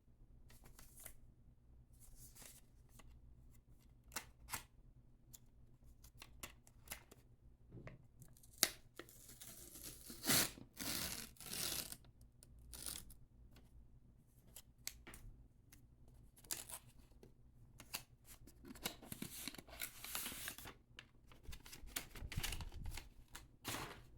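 Phone packaging being handled as a Google Pixel 9a is taken out of its box: scattered light clicks and taps, with two longer stretches of rasping, tearing-like packaging noise about ten and nineteen seconds in.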